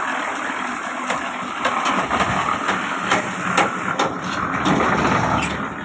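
Construction-site noise during reinforced-concrete lintel work: a steady running engine with irregular sharp knocks and clanks over it.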